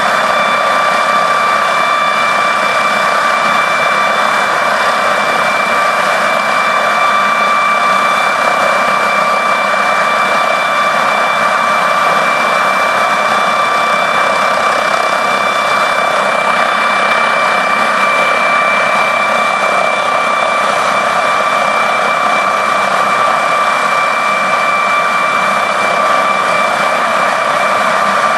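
MD 902 Explorer helicopter's twin turboshaft engines running with the aircraft sat on the ground: a steady high whine of several even tones over a constant rushing noise.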